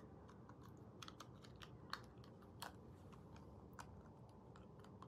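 Faint, irregular small clicks from fitting a removable snap-on veneer over the lower teeth by hand, the plastic ticking against teeth and fingers, a few clicks a little louder than the rest.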